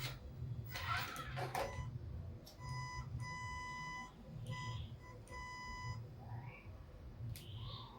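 Background music with a steady low beat and a high electronic beeping tone, held once for over a second and then repeated in shorter beeps.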